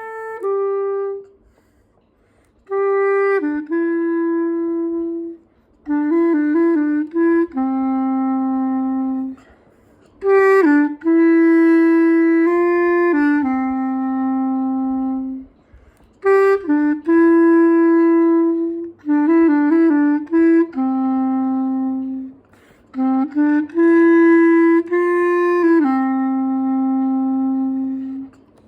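A solo wind-instrument melody in A mixolydian, a single line of notes played in phrases of held notes and quick runs with short pauses between them, ending on a long, low held note.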